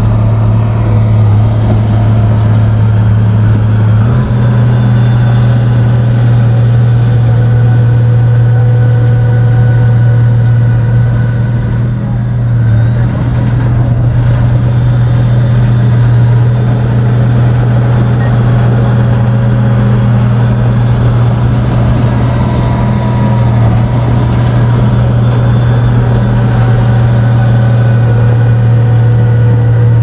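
Komatsu bulldozer's diesel engine running steadily under work, a constant low drone with a slight change in pitch about four seconds in and a brief dip in loudness near the middle.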